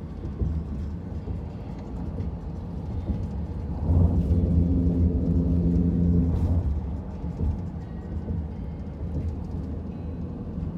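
Low, steady rumble of a car heard from inside, with a droning hum that swells for a couple of seconds about four seconds in.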